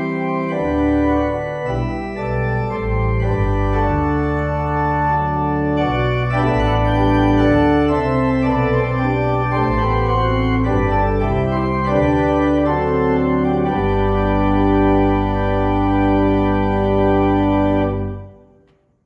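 Church organ playing the postlude: sustained chords over a deep bass line, with the final chord released near the end.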